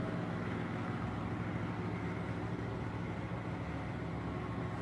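Steady low mechanical hum over a constant background hiss, with no distinct events.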